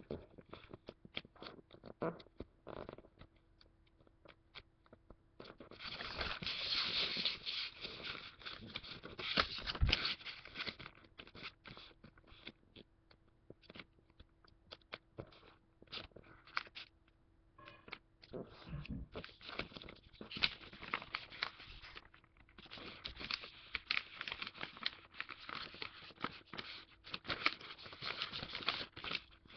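A sheet of origami paper being folded and creased by hand against a tabletop: scattered crinkles and scrapes, with longer stretches of dense rustling and one thump about ten seconds in. A faint steady hum runs underneath.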